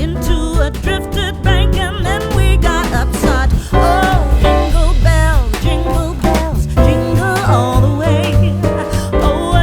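Music: a song with a singing voice over instruments and a steady bass line.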